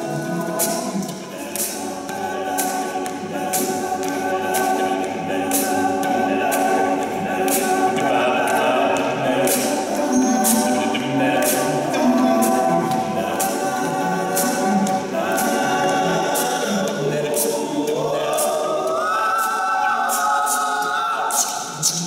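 Four-man a cappella group singing unamplified: sustained close vocal harmonies over a sung bass line, with beatboxed vocal percussion clicking a steady beat. Near the end the upper voices slide upward together.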